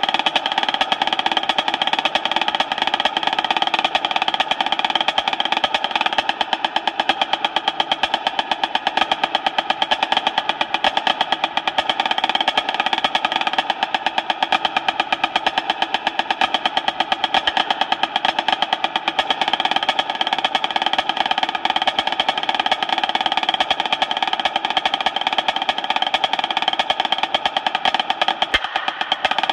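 Dynasty marching snare drum played with sticks in a fast, continuous rudimental solo: dense rolls and strokes with no break, stopping right at the end.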